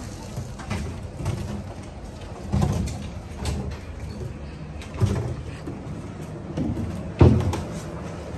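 Empty plastic jerry cans knocking and being set down on concrete: four short hollow thumps, the loudest near the end.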